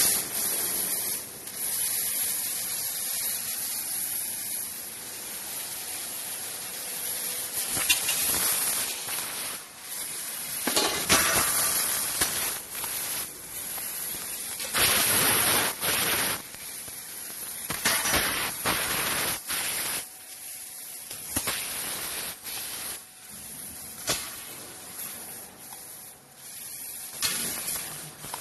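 6000 W laser tube cutting machine cutting a 360 mm round tube: a steady hiss of assist gas jetting from the cutting head, swelling in louder stretches and dropping back between them.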